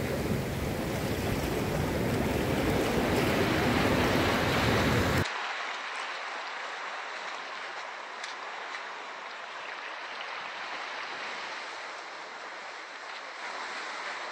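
Sea surf rushing, with wind buffeting the microphone and adding a heavy low rumble. About five seconds in it cuts off abruptly to a quieter, thinner rush of water with the rumble gone.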